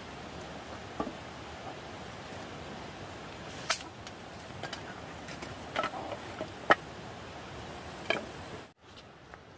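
A handful of short, sharp knocks and clicks, about five, over a steady background hiss. The hiss drops away suddenly near the end.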